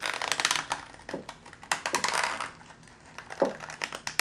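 A dull blade scraping along the cut edge of an aluminum bottle piece, trimming off the burrs in quick scratchy strokes, in three bursts about a second apart.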